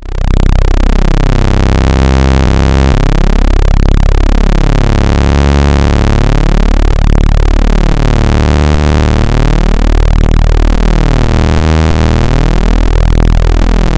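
Loud synthetic speaker-cleaning tone played to shake water and dust out of a phone speaker: a harsh, steady electronic buzz of quickly sweeping pitches, heaviest in the bass, that starts abruptly.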